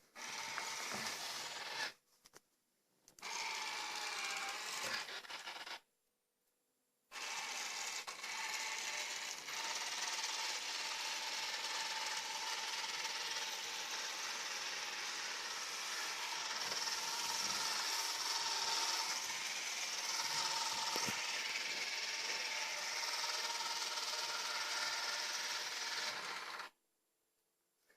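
Robot vacuum cleaner running: a steady motor whine with the scrubbing of its brushes. It drops out abruptly about two seconds in, again around six seconds, and shortly before the end.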